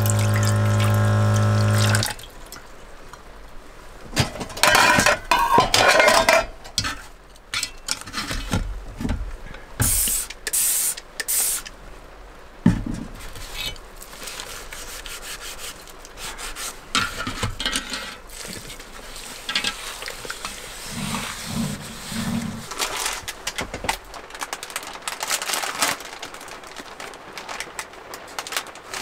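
Washing up at a small sink: a steady low hum stops about two seconds in, then tap water runs and splashes into a metal cup and plate, followed by a sponge scrubbing a plate with scrapes, clinks and splashes.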